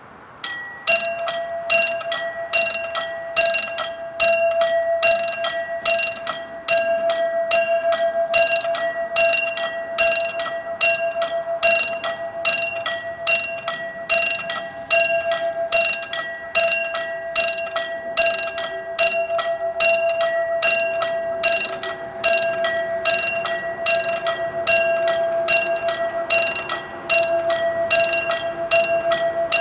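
Railway level-crossing warning bell starting up about half a second in and ringing in a rapid, steady run of repeated dings: the crossing signal warning of an approaching train.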